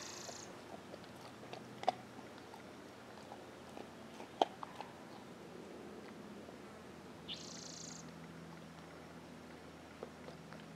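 Two short breathy hisses, one right at the start and one about seven seconds later, most likely forceful exhalations, over a quiet background with a few sharp little clicks and taps.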